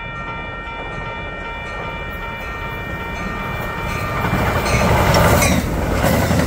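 Commuter train horn sounding a held multi-note chord that fades out about halfway through. Then the rumble and wheel clatter of the train's bilevel passenger cars rolling past close by, growing louder toward the end.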